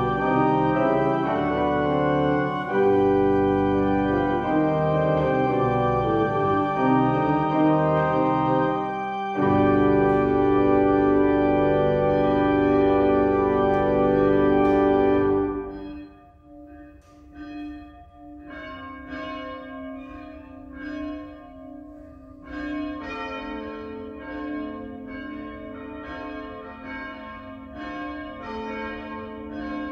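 Church pipe organ playing full sustained chords, closing on a long loud held chord that stops about halfway through. Church bells then ring a steady peal of several bells, struck over and over.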